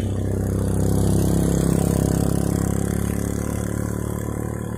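A motor vehicle's engine running at a steady pitch, growing louder to a peak about a second and a half in and then slowly fading, as a vehicle passing on the road.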